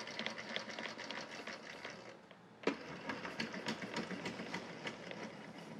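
Blade height adjustment crank on a Milwaukee M18 Fuel cordless table saw being turned, its gears clicking and rattling quickly as the blade is raised or lowered. The clicking stops briefly about two seconds in, there is one sharp click, and then it starts again.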